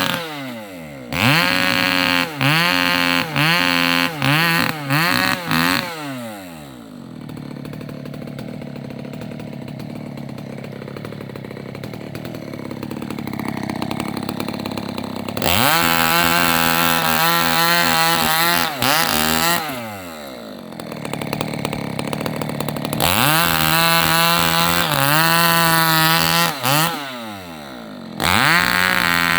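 Chainsaw blipping the throttle in about five quick revs, dropping to idle, then running at full throttle through two sustained cuts into felled rubber tree limbs, with idle between them. It ends with one more short rev.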